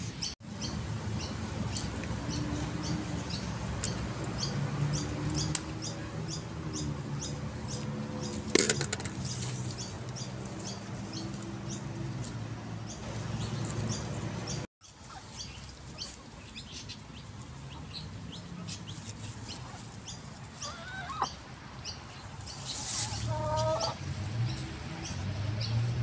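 Backyard chickens clucking in the background, with many short high chirps and a few sharp clicks and rustles; a few short rising calls come near the end.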